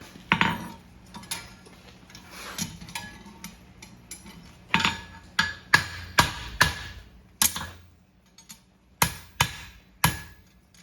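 Farrier's hammer striking a steel horseshoe on an anvil to bend a branch into shape, in irregular ringing blows: a few light ones early, a quick run of about half a dozen in the middle, and four more near the end.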